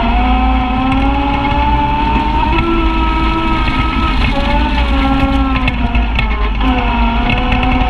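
Side-by-side UTV engine running while driving on a dirt trail, its pitch rising and falling as the throttle changes, over a steady low rumble and a few knocks from the bumps.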